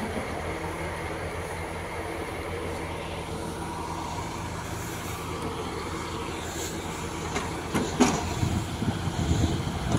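Diesel timber-truck engine running steadily to power the loading crane's hydraulics. A few sharp knocks come near the end, followed by uneven low rumbling.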